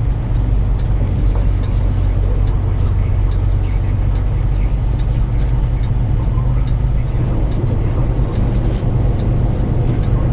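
Semi-truck diesel engine running steadily with a low hum, heard from inside the cab, with faint regular ticks over it.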